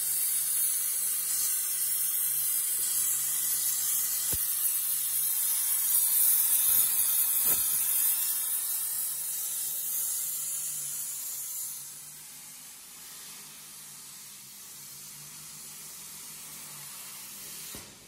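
CNC plasma torch cutting 26 mm steel plate: a loud, steady, high hiss. It drops sharply about twelve seconds in to a much quieter hiss.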